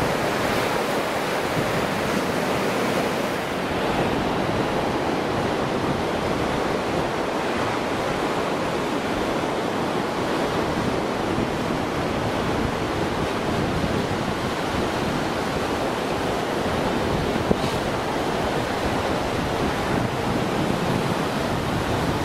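Steady surf washing onto a sandy beach, with wind buffeting the microphone. One brief click about three-quarters of the way through.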